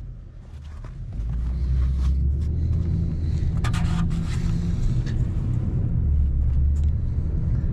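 Pickup truck on the move, heard inside the cab: a steady low rumble of engine and road noise that grows louder about a second in, with a few brief rustles.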